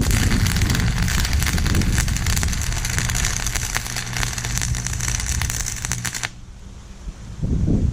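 Stick-welding arc crackling steadily for about six seconds on steel tubing, then cutting off sharply as the arc is broken.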